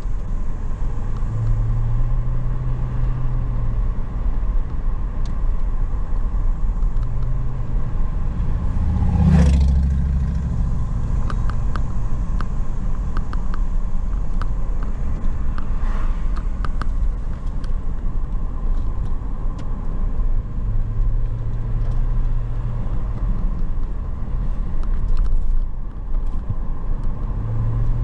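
Car engine and road rumble while driving: a steady low rumble, with the engine note coming and going and a brief louder swell about nine seconds in.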